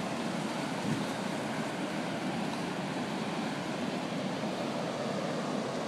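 Ocean surf washing on the shore, a steady, even rush.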